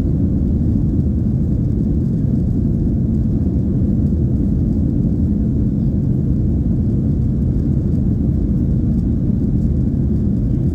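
Steady low rumble of a Boeing 737-800's CFM56-7B engines and rushing air, heard from inside the passenger cabin as the jet climbs after takeoff.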